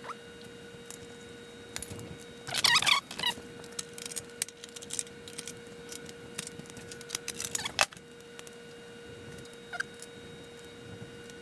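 Clinks, taps and rattles of an aluminium sheet-metal air box and small hardware being handled and fitted onto an engine, coming in a few short bursts with single clicks between them.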